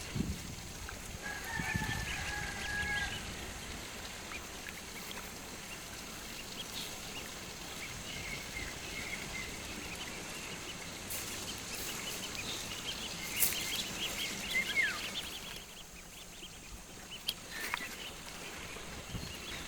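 Farmyard birds calling over a steady outdoor background: a held call about two seconds in, scattered short chirps, and a busy stretch of chirping with a short falling whistle about two-thirds of the way through.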